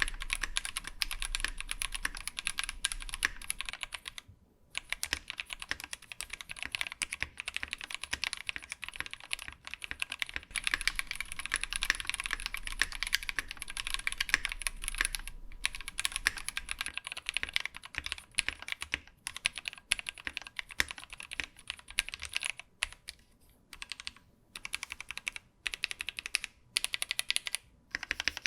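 Steady typing on a mechanical keyboard with Frog linear switches: a dense run of key clacks with a short pause about four seconds in, breaking into shorter bursts with gaps near the end.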